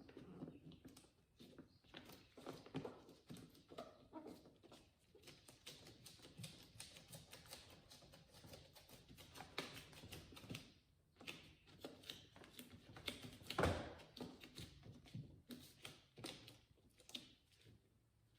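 Faint crinkling and rustling of a thin plastic door vapour barrier being pressed back onto butyl tape, with scattered light taps and one louder knock a little past the middle.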